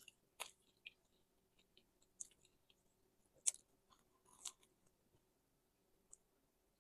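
Crisp crust of bánh tiêu (Vietnamese hollow fried bread) crackling as it is handled and pulled apart: a few short, scattered crunches, the sharpest about halfway through, with near silence between.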